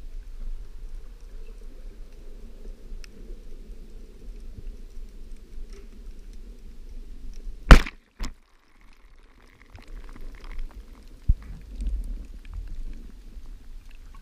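Dapiran Saber 90 band-powered speargun fired underwater: one very loud sharp crack, with a smaller snap about half a second after it, over a steady low underwater rumble. The sound drops out for about a second after the shot, and another sharp click follows a few seconds later.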